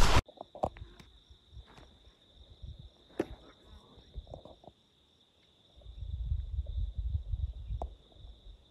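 An insect trilling steadily on one high note, with a few faint clicks, and a low rumbling noise for a couple of seconds from about six seconds in.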